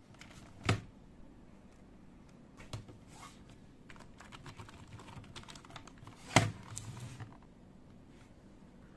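Keys of a dirty old HP PS/2 computer keyboard being pressed, a scatter of soft key clicks with a few louder knocks, the loudest about six and a half seconds in followed by a brief rattle.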